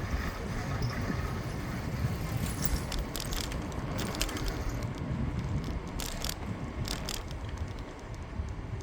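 Bicycle riding on a city street: a steady low rumble of tyres and wind on the microphone, with two groups of sharp clicks, about three seconds in and again around six to seven seconds in.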